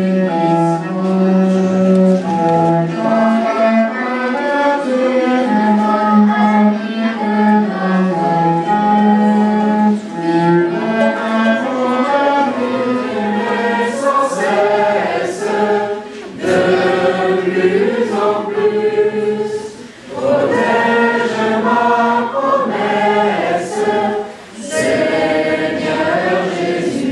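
A cello playing a slow melody of held notes, then a group of young voices singing in chorus from about ten seconds in, with brief pauses between phrases.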